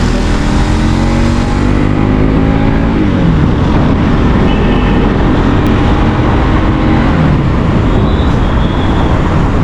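Engine of a road vehicle being ridden, its pitch climbing and then falling away about three seconds in and again around seven seconds, as with gear changes. It runs over a loud, steady rush of road and wind noise.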